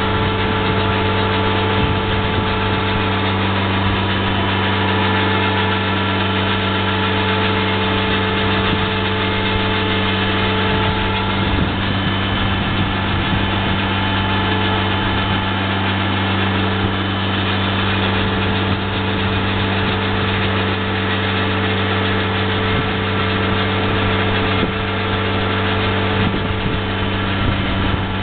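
A steady mechanical hum from an engine or motor running at an even speed, with several constant tones; a couple of the higher tones fade about twelve seconds in.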